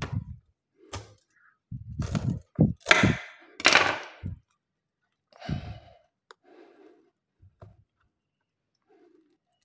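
Durian husk being pried apart by hand on a tabletop: a few dull knocks with cracking and tearing of the spiky rind, loudest from about two to four and a half seconds in, then one shorter crack near six seconds.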